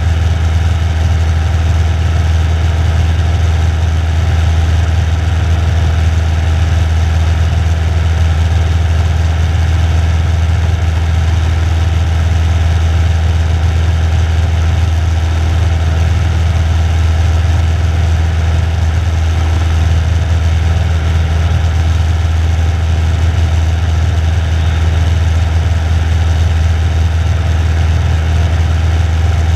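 Single-engine light aircraft's piston engine and propeller droning steadily in flight, heard from inside the cockpit: a low, even hum with no change in power.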